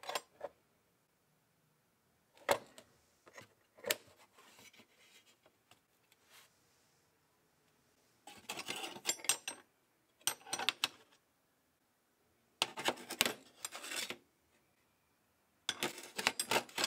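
Metal tool box latch and lid clicking and knocking open, then chrome-plated steel wrenches clinking and jangling against each other and the steel box in several short bursts as they are picked up and moved.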